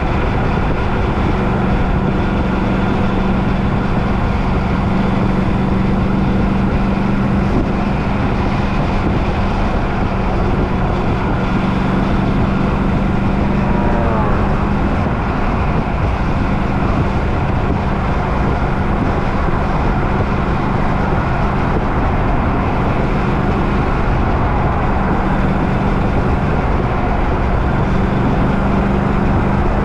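Steady running noise of a motor vehicle, with a constant low engine hum throughout. A brief falling squeal is heard about 14 seconds in.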